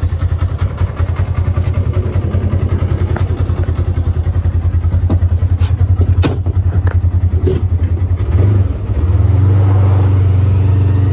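2025 Polaris RZR XP 1000's twin-cylinder engine idling with an even pulsing beat. After a few sharp clicks midway, the engine note turns steadier and louder from about eight and a half seconds in as the side-by-side is put in high gear and pulls away slowly.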